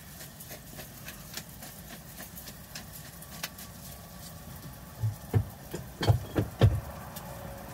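Handling noise: faint ticks, then a few sharp knocks as things are set down on the kitchen counter near the end, over a faint steady low hum.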